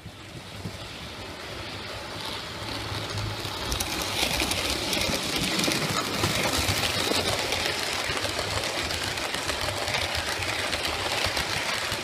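00 gauge model train running along the track close by. It grows louder over the first few seconds and eases slightly near the end.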